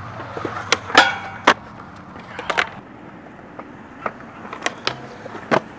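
Skateboard riding on concrete: the wheels roll with a low hum, broken by a series of sharp clacks of the board hitting the ground, the loudest about a second in.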